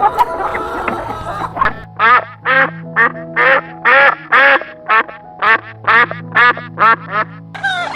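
A duck quacking in a steady run of about a dozen short quacks, roughly two a second, starting about two seconds in, over steady background music.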